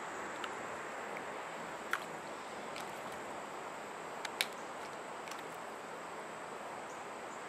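Steady rush of river water running over a shallow riffle, with a few sharp clicks about two seconds and four seconds in.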